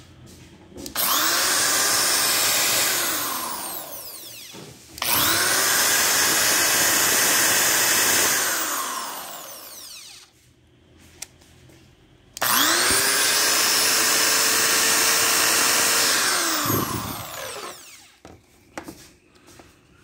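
DeWalt electric drill run three times with nothing in the chuck, each time spinning up quickly, running at a steady whine for a few seconds, then winding down when the trigger is let go. This is the sound sought after its repair and maintenance.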